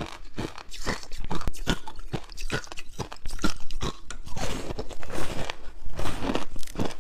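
Frozen passion fruit ice being bitten and chewed, crunching in a quick, irregular run of sharp cracks.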